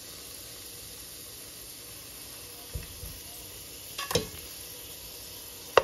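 Oxtail pieces sizzling steadily as they brown in hot oil in a pot. Three short knocks of tongs and meat against the pot break in, about three seconds in, at about four seconds, and a sharp loud click near the end.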